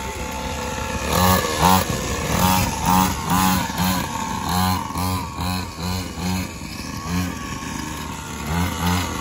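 Small two-stroke engine of a kid's mini dirt bike, running and then revved in quick throttle blips about twice a second from about a second in.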